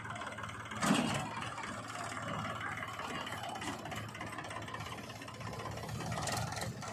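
Diesel engine of heavy earth-moving machinery running steadily, with one short knock about a second in.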